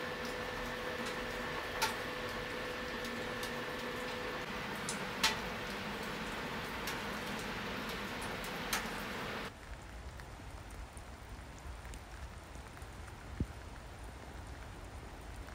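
Wood-burning stove fire crackling, with a few sharp pops from the burning logs over a steady hiss. About nine and a half seconds in it cuts off abruptly to quieter, steady rain.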